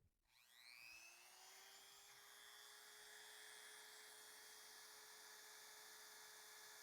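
A Dremel rotary tool switched on: a faint whine rises in pitch as it spins up over about a second and a half, then runs steadily at speed.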